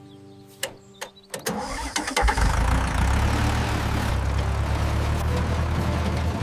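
A few sharp clicks, then an engine starts about two seconds in and settles into a steady, low-pitched idle.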